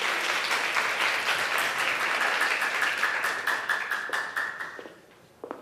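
Audience applauding, fading out about five seconds in; then a single high-heeled step on the wooden stage floor near the end.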